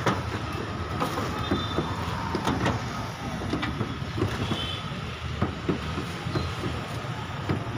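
Steady low rumble of street traffic, with irregular sharp clicks and knocks from cooking at a wood-fired roti griddle.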